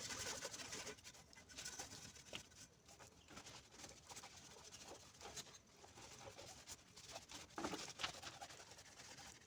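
Faint sandpaper strokes rubbing on a car body panel, scratchy and irregular, strongest in the first second and again briefly about eight seconds in.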